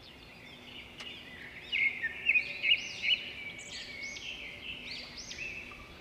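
Birds chirping: a run of quick, arching chirps, several overlapping, loudest about two to three seconds in.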